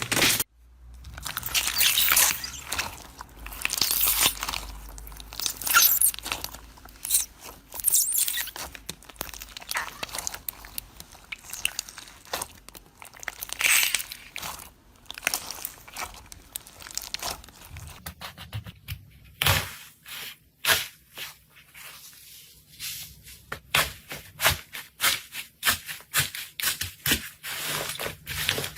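Slime being squeezed, stretched and poked, with crunching and crackling. In the last several seconds it gives short sharp pops in quick succession.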